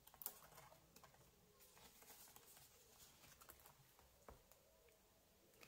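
Faint rustling of paper banknotes and a cash-envelope binder, with scattered small clicks and a couple of sharper ticks, as notes are slipped into the envelopes and the binder's pages are turned.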